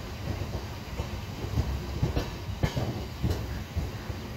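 Express train running on the track, heard from aboard through an open door or window: a steady low rumble of the coaches with irregular sharp clacks from the wheels on the rails.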